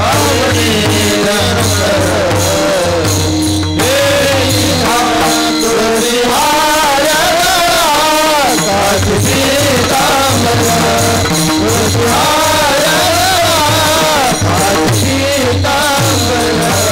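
A chorus of men singing a Warkari bhajan tune together, accompanied by harmonium, drum and the steady clash of small hand cymbals (taal).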